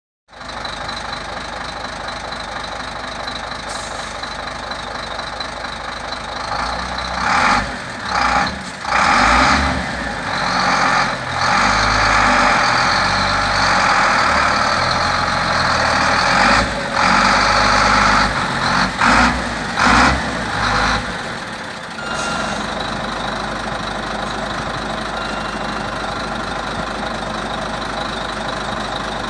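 Powerstar 2628 tipper truck's diesel engine idling steadily, then revved repeatedly for about fifteen seconds with several quick blips of the throttle, before settling back to a steady idle.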